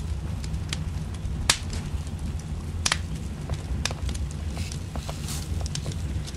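Small smoky stick fire crackling, with sharp pops, the loudest about one and a half, three and four seconds in, among many smaller ticks over a steady low rumble.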